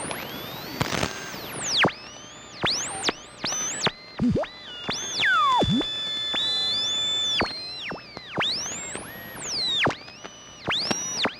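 Radio being tuned across the dial: whistling tones that sweep up and down in pitch over a hiss of static, one whistle held steady for about two seconds midway.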